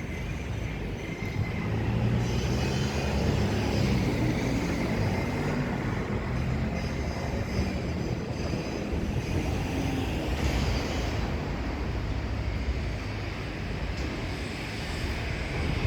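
Steady vehicle noise: a continuous rumble with a hiss above it, the level staying even throughout.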